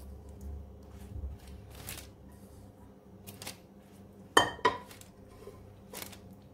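Silicone pastry brush dabbing melted butter onto rolled yufka pastry on a paper-lined baking tray, making soft brushing swishes. A little over four seconds in come two sharp clinks, a fraction of a second apart, of the brush or cookware against the frying pan holding the butter.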